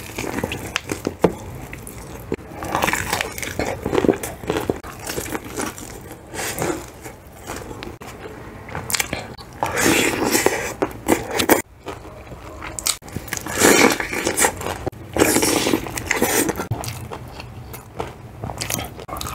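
Close-up biting and chewing of crispy fried chicken: the breading crunches and crackles in irregular bursts, with wet chewing in between.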